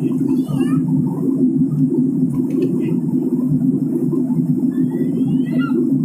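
Steady cabin drone of an airliner in flight: jet engines and airflow heard from a window seat. Faint high warbling glides come just after the start and again about five seconds in.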